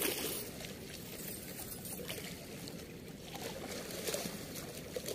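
Steady rush of flowing water, with a few light clinks and rustles as a cast net's chain weights and mesh are handled, the sharpest clink right at the start.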